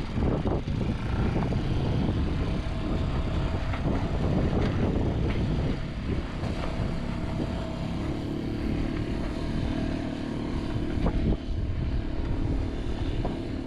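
A boat's engine running steadily. About eight seconds in, a second, higher engine hum joins it.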